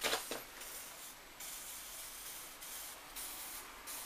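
Knitted oven glove rubbing and brushing close to the microphone: a soft hiss that comes and goes in spells of about a second.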